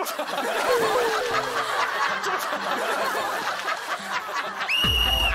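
A group of people laughing together. Near the end a held electronic tone comes in, rising briefly and then steady, over a low boom, typical of an edited-in sound effect.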